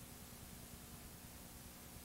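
Faint steady hiss with a low, even hum from a blank stretch of analog videotape playback.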